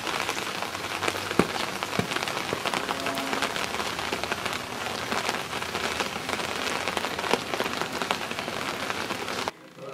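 Steady rain pattering, a dense hiss of many small drop ticks, which stops suddenly near the end.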